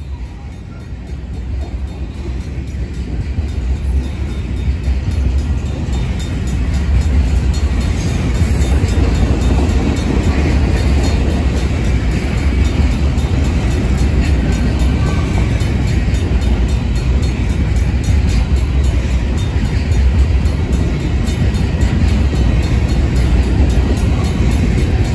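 Covered hopper cars of a Union Pacific grain train rolling past on the rails with a steady low rumble, growing louder over the first several seconds. The crossing's Safetran mechanical bell keeps ringing.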